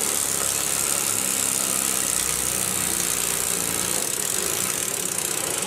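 Model steam locomotive's double-acting oscillating-cylinder steam engine running fast, a steady hiss of steam with a mechanical whir underneath. It cuts off suddenly at the end.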